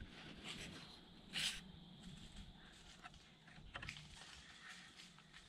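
Faint rustling and small ticks, with one brief louder rustle about a second and a half in, over a faint steady high-pitched tone.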